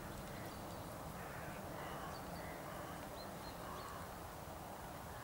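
Steady outdoor background noise with a few short, faint bird calls scattered through it.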